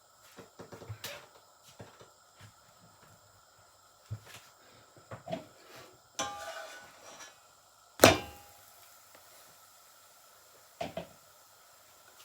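Kitchen handling noises: scattered light clicks and knocks, a rustling scrape about six seconds in, and one loud sharp knock about eight seconds in, like a cupboard door or container being shut or set down.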